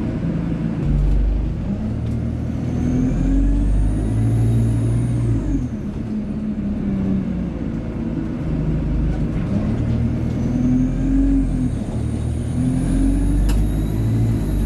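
Alexander Dennis Enviro 200 bus pulling away through the gears of its Allison automatic gearbox: the engine note climbs and drops back at each shift. A high turbo whine rises and falls over it, twice.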